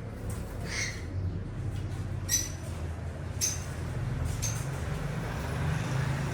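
Four short, high chirps from pet birds over a steady low hum.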